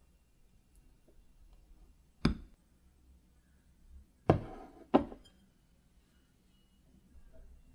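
Three sharp knocks of a metal knife against a ceramic plate and crockery: one about two seconds in, then two close together near the middle, the first of that pair ringing briefly.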